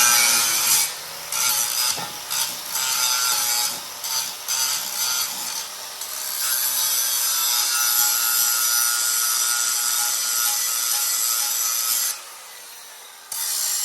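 Angle grinder grinding steel, touched to the metal in short passes for the first few seconds, then held on in one steady pass that stops about twelve seconds in, with a brief last burst near the end.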